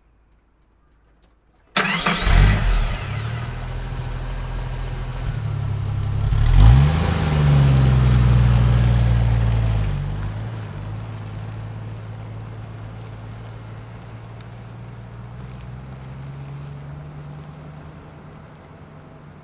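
Car engine starting suddenly about two seconds in and revving as it catches, then running and revving up again before the car pulls away, the engine sound fading slowly as it drives off.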